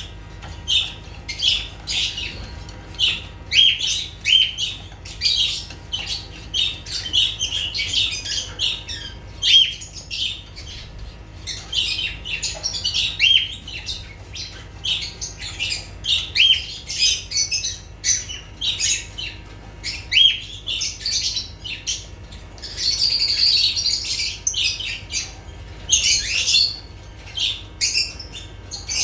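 Lovebirds chirping rapidly and continuously in short, high chirps, with a longer harsh squawking stretch about three-quarters of the way through.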